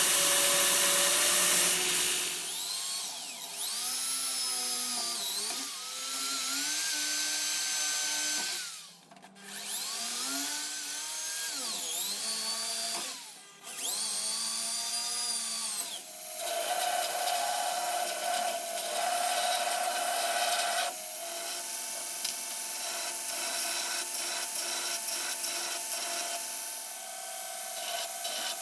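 Wood being worked with power tools. A belt grinder sands a wooden handle block. A handheld power drill then bores through an ironwood burl handle block, its motor whine rising and falling in pitch as the trigger is squeezed and eased over several runs, with two short pauses. Steady belt-grinder sanding follows.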